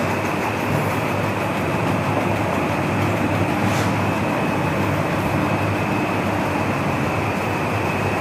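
Steady machine noise, an even whir with a low hum under it, running unchanged.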